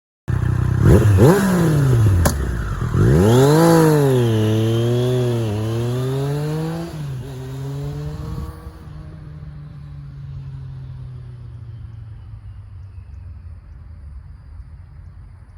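Triumph Street Triple 765 RS inline-three engine on its stock exhaust, picked up close to the pipe, revving up and dropping back several times as it pulls through the gears. From about eight seconds in it settles to a steadier, quieter run.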